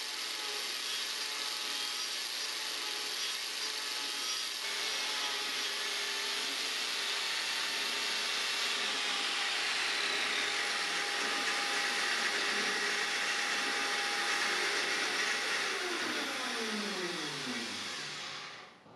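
Makita angle grinder fitted with a Graff Speedcutter carving disc, running steadily as it cuts into a wooden spoke blank on a copy lathe. Near the end it is switched off, and its pitch falls as it winds down to a stop.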